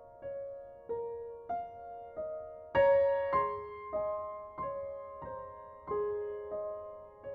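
Slow, gentle piano music: single notes struck about every half second or so and left to ring out, with a louder, fuller chord nearly three seconds in.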